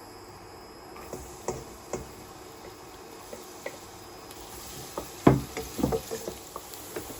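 Chopped garlic frying in olive oil in a pan: a soft steady sizzle that sets in about a second in, with a utensil stirring and knocking against the pan, the loudest knocks about five to six seconds in.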